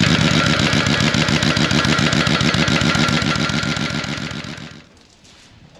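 Heavy-duty impact wrench hammering hard in a fast, even rattle for about five seconds, then stopping, as it runs down a nut on the disk's gang.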